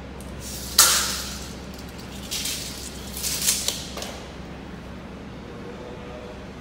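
Steel pipe being handled at a power pipe-threading machine: a sharp metallic knock about a second in, then a few rougher knocks and scrapes a couple of seconds later, over a steady low hum.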